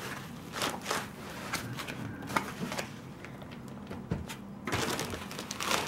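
Packaging being handled: foam end caps pulled off a laptop in a plastic bag on a wooden table. There are scattered light knocks and clicks, and a stretch of rustling about five seconds in.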